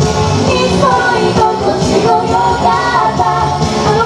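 Girls singing a Japanese pop song live into handheld microphones over loud pop backing music.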